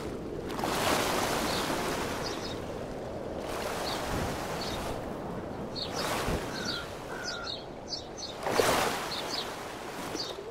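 Waves washing in, in slow swells of noise every few seconds, with faint bird chirps over them: an outdoor waterside ambience.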